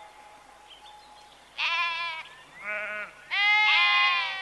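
Livestock bleating, three calls: a short bleat about one and a half seconds in, a shorter, lower one a second later, and a longer one near the end with a second voice overlapping it.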